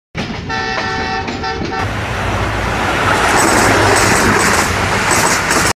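A horn sounding a chord of several steady tones for about a second and a half, followed by a loud rushing noise that builds and then cuts off suddenly.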